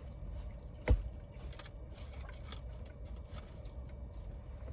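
A single thump about a second in, with faint clicks and rustles of food containers being handled, over a steady low rumble.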